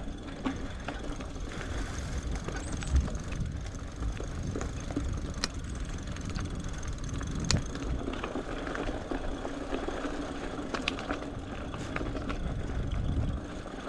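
Electric mountain bike ridden over a rough dirt trail: steady rumble and rattle of the tyres and frame, with occasional sharp knocks. A faint steady hum from the motor comes in during the second half as it labours uphill.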